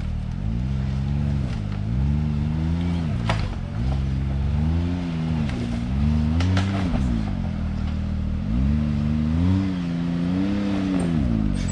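A side-by-side UTV's engine revving up and falling back again and again as it is throttled over rocks, with a few sharp knocks.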